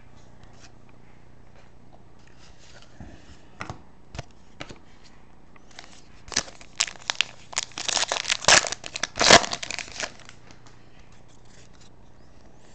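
Foil wrapper of a hockey-card pack crinkling and tearing in the hands: a few light clicks, then a dense flurry of crackling about six to ten seconds in.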